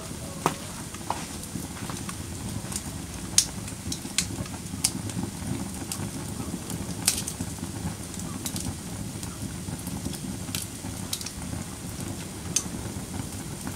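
Wood fire crackling, with sharp pops scattered irregularly every second or two over a steady low rumble of flames.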